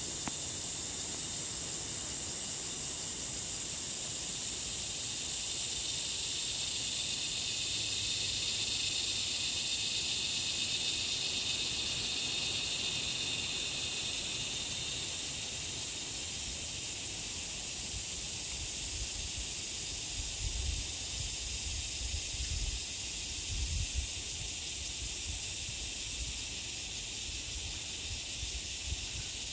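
Chorus of insects: a steady high buzzing, with a higher chirping that pulses about twice a second. The lower part of the buzz fades out about halfway through. A few low thumps come a little past two-thirds of the way in.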